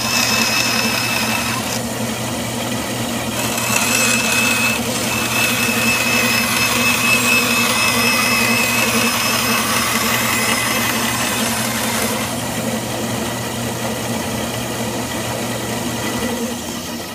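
Bandsaw motor running steadily, with a higher wavering whine coming and going as the blade cuts through a wooden board.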